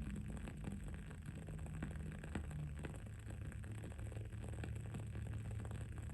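Wood-wick candle crackling, with many small irregular pops and ticks over a steady low hum.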